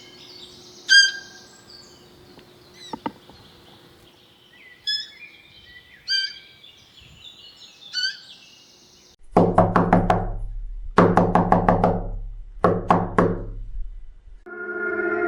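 Scattered short bird-like chirps, then about nine seconds in a burst of music made of repeated struck, pitched chords lasting about five seconds.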